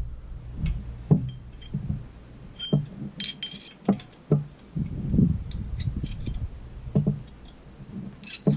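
Small metal engine parts clinking and tapping as they are handled and fitted, with soft knocks and a brief metallic ring about three seconds in.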